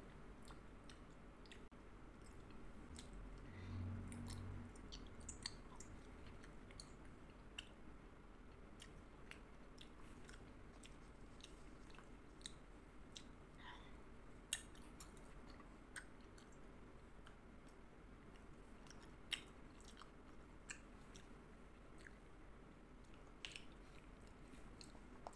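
Faint, close-up chewing of a soft gummy candy: scattered wet mouth clicks and smacks, with a short low hum about four seconds in.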